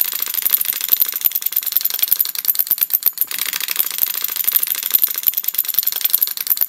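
Toy cymbal-clapping monkey running, its small metal cymbals clashing over a fast, continuous mechanical clatter.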